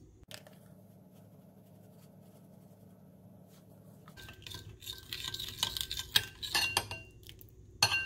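Long-handled metal spoon stirring sauce in a glass mixing bowl, clinking and scraping against the glass with a short ringing after each strike. It starts about halfway in and grows louder toward the end.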